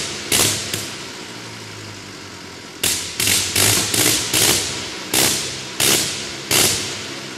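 Gnome rotary aero engine running slowly, firing in sharp bangs that come about two a second. About a second in the bangs stop for roughly two seconds, leaving only a low hum, then resume.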